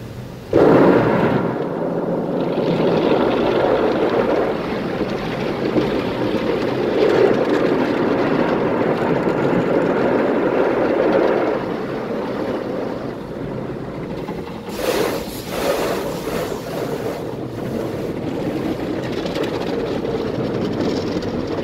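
Automatic car wash spraying water and foam onto the car, heard from inside the cabin: a loud rushing hiss that starts suddenly about half a second in, eases after about eleven seconds, and surges briefly again around fifteen seconds.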